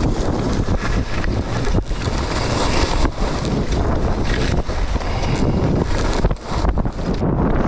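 Loud wind buffeting a GoPro HERO10's microphone during a ski run downhill, a rough, fluttering rush mixed with the rasp of skis on snow, with brief dips in level.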